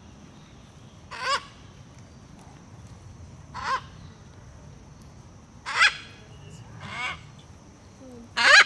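A macaw squawking: five short, harsh calls spaced a second or two apart, the last one the loudest.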